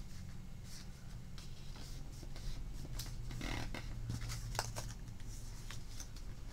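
Squares of thin magazine paper being folded in half and creased by hand: scattered crinkles and rustles, busiest midway, over a steady low hum.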